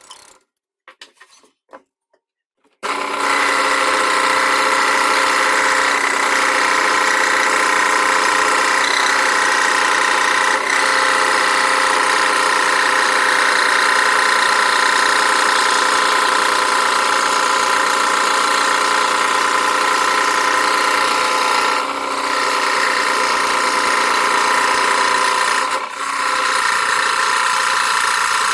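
Scroll saw starting up about three seconds in and running steadily as it cuts plywood, with two brief dips later on.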